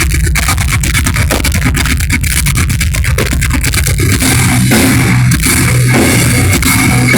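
Progressive metal band playing live, heard as a loud, distorted audience recording: fast drumming over heavy bass and guitar. About four seconds in, held low bass and guitar notes come in under the drums.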